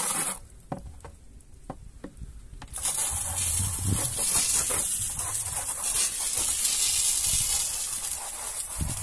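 Water running from a garden hose into a plastic mixing bucket, a steady hissing splash. It drops away for about two seconds just after the start, with a few clicks, then runs again.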